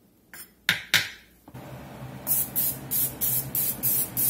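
Cooking oil spray spritzed onto a cast-iron griddle pan in about seven quick short hisses, evenly spaced, after a few sharp knocks in the first second and a half.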